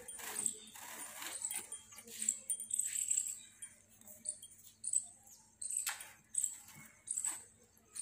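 Cotton cord being pulled and worked through the weave of a charpai (woven string bed), giving short scrapes and taps, while small birds chirp repeatedly in short high notes.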